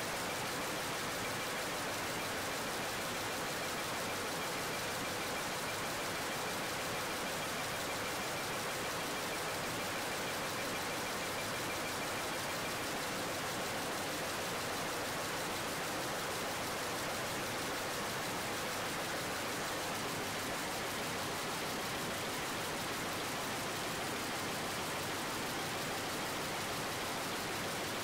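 Industrial Jacquard loom running as it weaves a tapestry, heard as a steady, even rush of noise with no separate beats.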